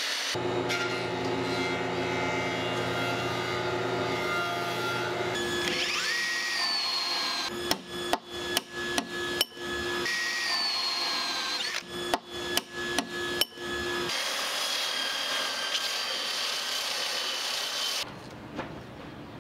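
Power tools working timber: a motor whines steadily for the first few seconds, then two quick runs of sharp knocks come in the middle. After that a belt sander runs on a weathered teak transom plank for several seconds, until the sound drops away near the end.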